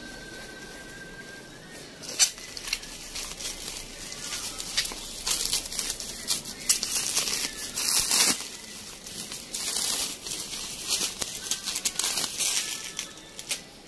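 Plastic bubble wrap being handled and pulled open by hand, crinkling and crackling in irregular bursts from about two seconds in.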